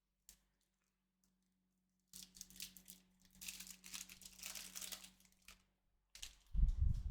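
A trading card pack's wrapper being torn open and crinkled, a rustling run of about three and a half seconds starting about two seconds in, followed near the end by heavier handling noise.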